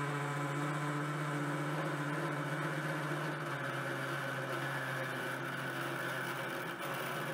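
Optimum metal lathe running while a large blunt 20 mm drill in the tailstock bores out the centre of a round bar: a steady motor hum over the drill's cutting noise, the hum dropping a little in pitch about halfway through as the drill labours in the cut.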